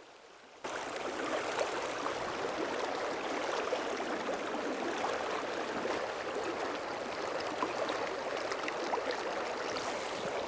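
Stream water rushing steadily with small gurgles, cutting in abruptly about half a second in.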